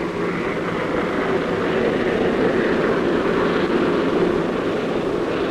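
Short Sunderland flying boat making a low pass, its four radial piston engines droning steadily.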